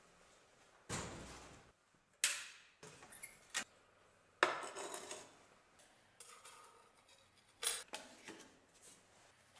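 A handful of separate metallic clanks and knocks as the steel door of a small electric heat-treating furnace is opened and shut and the blade is handled with tongs. The sharpest strikes come about two and about four and a half seconds in, each with a short ringing tail.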